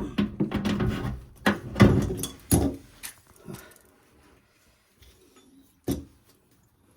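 Hand tools and metal parts of a washing machine clattering as a part is worked loose: a quick run of knocks and scrapes for about three seconds, then a few faint clicks and one sharp knock near the end.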